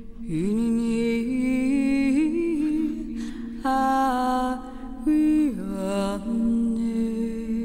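Backing music: women's voices singing a slow chant, with gliding and held notes over a steady drone.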